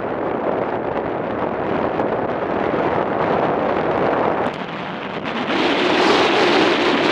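Wind rushing over the microphone of a camera mounted on a moving motorcycle, an even roar with no clear engine note. It dips briefly about four and a half seconds in, then grows louder and brighter.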